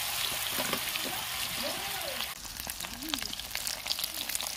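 Batter-coated cauliflower florets frying in hot oil in an iron kadai: a steady sizzling hiss that turns to sharper, popping crackles a little over two seconds in.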